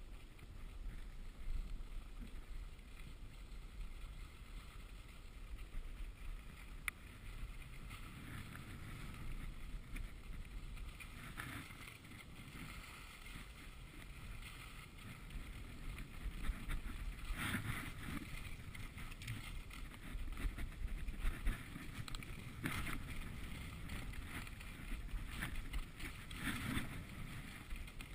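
Skis sliding over packed, groomed snow with a steady rushing hiss and wind buffeting the camera microphone. Several louder scraping rasps come in the second half as the ski edges bite into the snow on turns.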